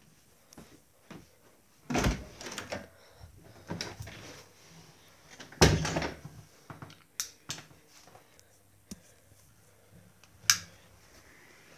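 Scattered knocks and bumps, the loudest about two seconds in, near six seconds and near ten and a half seconds, with smaller clicks between and quiet room tone otherwise.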